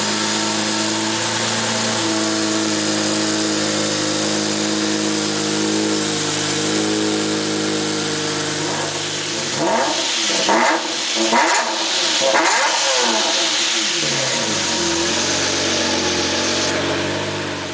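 Lamborghini Murciélago LP670-4 SV's V12 idling steadily through a Tubi aftermarket exhaust, then revved in several quick blips, each rising and falling, a little past the middle, before settling back to a steady idle.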